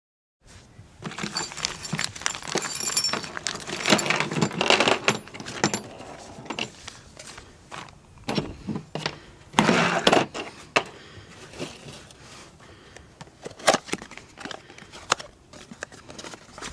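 Handling noise of small metal ignition parts and hand tools being picked up and set down on a tabletop: irregular clinks, clicks and rattles with rustling, and a few louder bursts.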